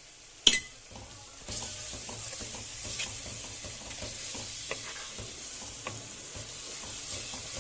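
Onions with ginger-garlic paste and spices frying in oil in a pan, sizzling steadily as a wooden spatula stirs them, with a few light ticks. A sharp knock comes about half a second in, and the sizzle grows louder about a second and a half in.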